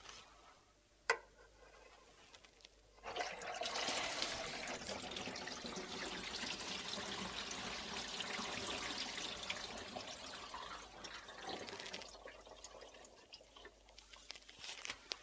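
Water draining out of a stainless steel kitchen sink through newly fitted PVC waste pipes and trap once the plugs are pulled: a sharp click about a second in, then a rush of draining water for about nine seconds that thins out into trickles and drips. This is the first water run through the new drain, filling the trap and testing the joints for leaks.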